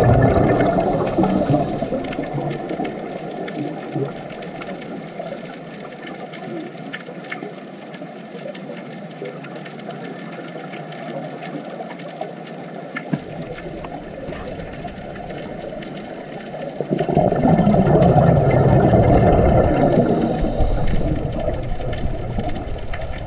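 Underwater ambient noise: a steady low rushing of water, loud at first, quieter through the middle and swelling loud again near the end.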